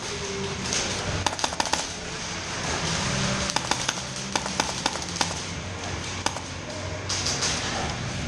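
Scattered airsoft gunfire: sharp clacks of shots and BBs striking hard surfaces in an indoor arena, coming in irregular clusters over a steady low hum.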